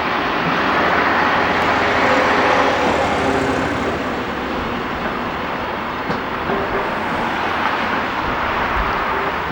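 Diesel train running, a steady mechanical noise that swells a little in the first few seconds.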